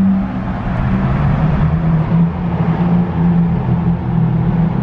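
2015 Dodge Charger SXT's 3.6-litre V6 running steadily at low speed through its new aftermarket Flowmaster exhaust, a deep even exhaust drone heard from inside the cabin in a road tunnel.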